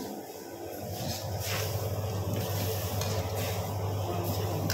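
Chopped garlic sizzling in hot oil in a wok, with a ladle stirring and lifting the oil, over a steady low hum.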